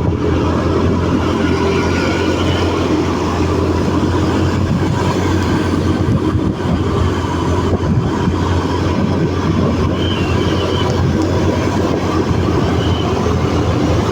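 Rain falling steadily: a loud, even hiss with a strong low rumble underneath.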